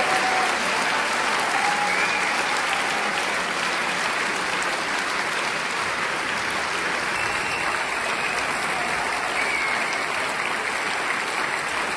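Theatre audience applauding steadily at a curtain call, with a few faint calls rising above the clapping.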